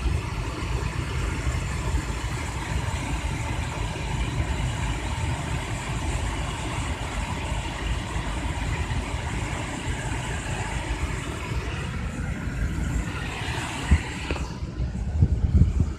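D&S car-wash dryer blowers blasting air over the car, heard from inside the cabin as a steady rush. A single knock comes about 14 seconds in, then the rush falls away, leaving low uneven rumbling.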